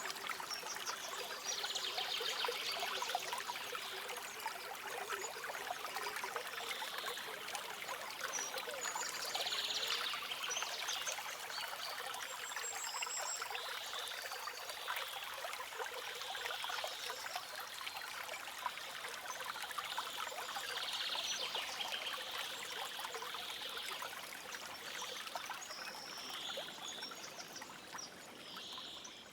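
Stream water trickling and splashing steadily over rocks, with brief high bird chirps now and then.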